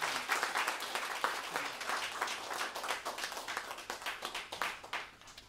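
Small audience applauding with hand claps, the clapping thinning out and dying away toward the end.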